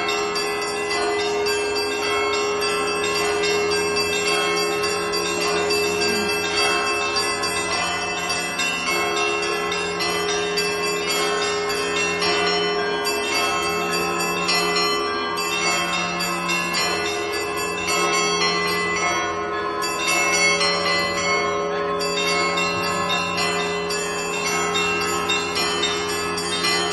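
Russian Orthodox monastery bells rung by hand in a continuous festal peal. Many bells sound at once, the small bells striking quickly over the steady hum of the larger bells.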